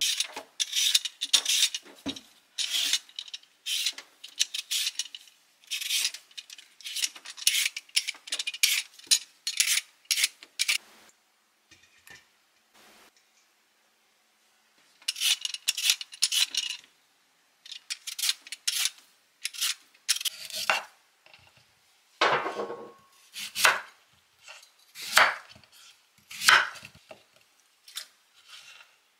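Vegetable peeler scraping the skin off a raw sweet potato in quick repeated strokes, with short pauses between runs. In the last several seconds come fewer, louder and deeper strokes as a knife cuts the sweet potato into chunks on a wooden cutting board.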